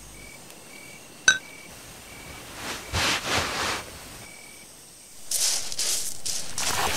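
A single bright glass clink, briefly ringing, about a second in. Then bursts of rustling, the longest in the last two seconds, under faint short high beeps repeating every second or so.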